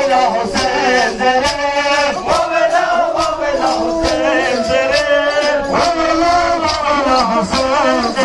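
Male voices chanting a mourning lament (noha) over a steady beat, about two strikes a second.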